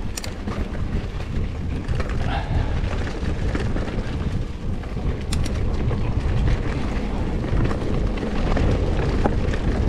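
Mountain bike rolling downhill on a rough, muddy dirt singletrack: a steady low rumble of the tyres on the ground, with scattered sharp clicks and clacks from the bike rattling over the bumps.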